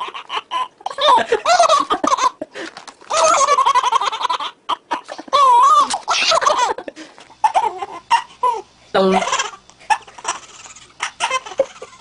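A baby laughing in repeated bursts of belly laughs and giggles, broken by short pauses.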